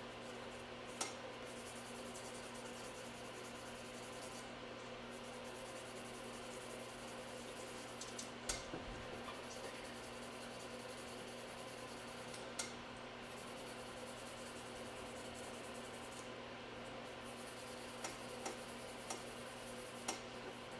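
Faint scratching of a nail file on fingernails, over a steady low hum, with a few sharp light clicks, several of them close together near the end.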